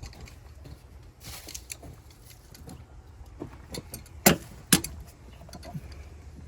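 Hand tools clicking and clinking against metal while working at a rusted heater hose clamp. Scattered light clicks, with two loud sharp clicks about half a second apart a little after four seconds in.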